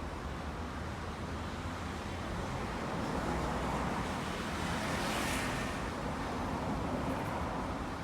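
Road traffic: a steady low engine rumble, with a vehicle passing that swells to its loudest about five seconds in and then fades.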